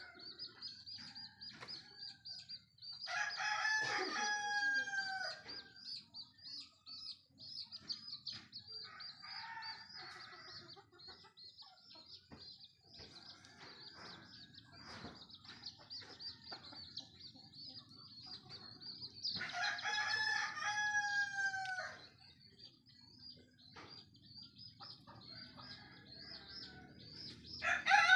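Rooster crowing cock-a-doodle-doo, two long crows about fifteen seconds apart, with a third starting right at the end. A steady high-pitched chirring runs underneath.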